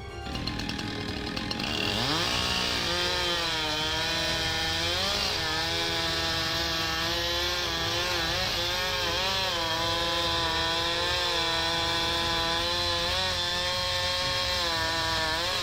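Chainsaw revving up about two seconds in, then running at high speed while cutting into wood. Its pitch dips briefly several times and drops off near the end.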